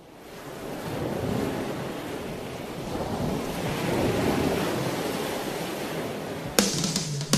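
Water rushing and the wake splashing from a boat under way, with wind buffeting the microphone; it fades in at the start and holds steady. Near the end, music with drums comes in.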